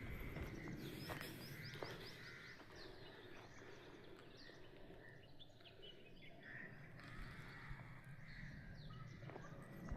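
Faint outdoor ambience with birds chirping in short, quick, high calls, thickest about a second in, over a steady low rumble.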